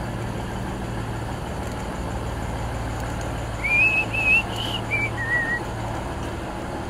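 VLocity diesel railcar idling at the platform with a steady low hum. A little over halfway through, a run of five short warbling whistle notes, the last two lower in pitch, rises over it.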